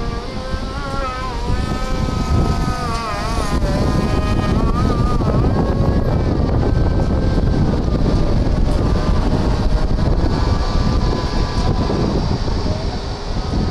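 Boeing 737-800's CFM56 jet engines running on the runway: a wavering whine at first, then a steady, loud roar that builds about four seconds in.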